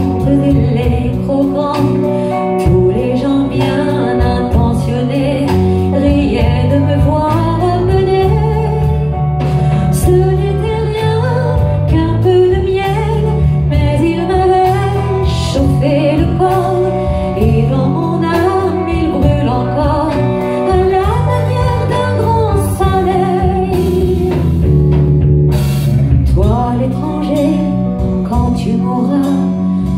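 Live band playing a slow song on guitars, bass, drums and keyboard, with a lead melody that slides up and down in pitch over steady chords.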